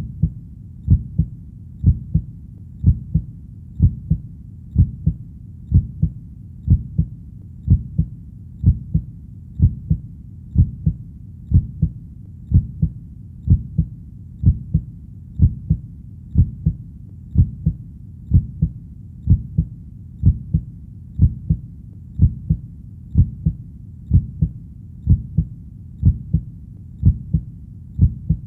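A heartbeat beating steadily at about one beat a second, each beat a low double thump (lub-dub).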